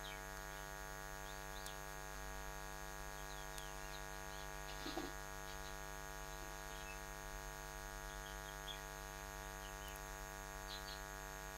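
Steady electrical hum with many overtones, with faint short bird chirps now and then in the background.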